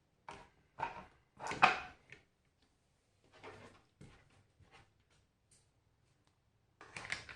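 Scattered light taps and clicks of iPhone parts and tools being handled and set down on a workbench, about a dozen short knocks spread unevenly, with a small cluster near the end.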